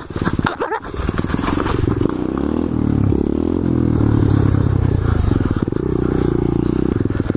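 2015 SSR 125cc pit bike's single-cylinder four-stroke engine running under throttle, its note rising and falling as it is revved through a wheelie. In the first second it clatters and bumps as the bike comes off a flight of concrete stairs.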